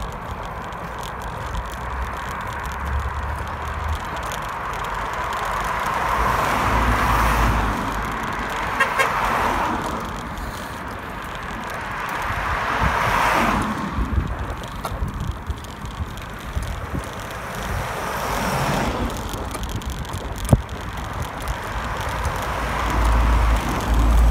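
Road traffic: cars and a lorry passing one after another, each swelling up and fading over a few seconds, heard from a moving bicycle with wind rumbling on the microphone.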